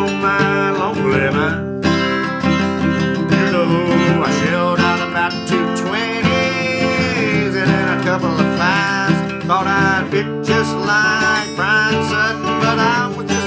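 Steel-string dreadnought acoustic guitar strummed hard with a flatpick, with a man singing along.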